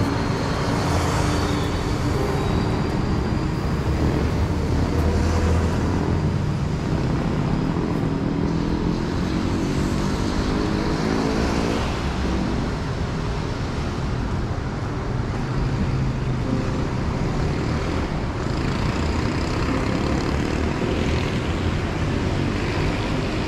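City road traffic on a wet street: a steady rumble of passing vehicles, swelling twice, with one engine rising in pitch as it accelerates about ten seconds in.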